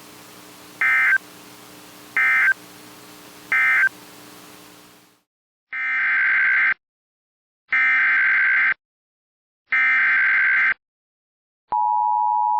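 Emergency Alert System SAME data bursts from a weather radio alert. Three short buzzy end-of-message bursts over a background of hum and hiss mark the end of one warning. After a pause, three one-second header bursts announce the next warning, and the steady two-note attention tone starts near the end.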